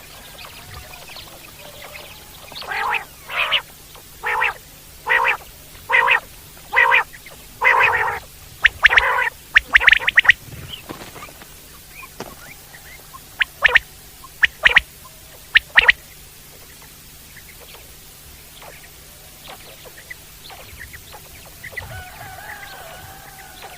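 Common quail (Coturnix coturnix) calling: a run of short, clipped notes about one a second, quickening near the end, then after a pause a second run of about five sharper notes.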